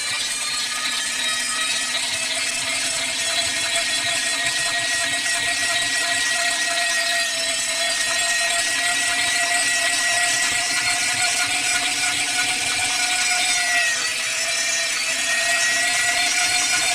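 High-speed power saw running steadily at speed: a constant high whine that dips briefly about fourteen seconds in, then recovers.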